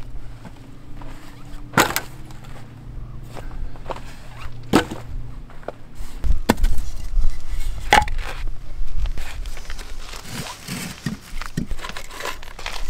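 Dry wood being broken by hand and foot: four loud sharp cracks a second or two apart, with smaller snaps and rustling between.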